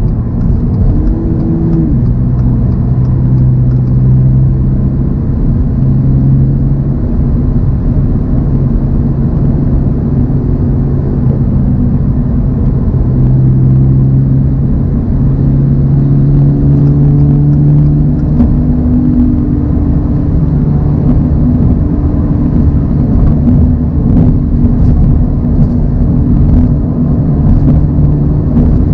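Toyota GR86's 2.4-litre flat-four engine running steadily at cruise, with constant road and tyre noise. Its pitch rises slightly about halfway through as speed changes.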